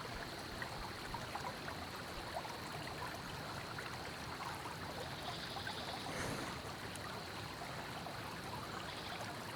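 Creek water running steadily, a continuous even rush and trickle.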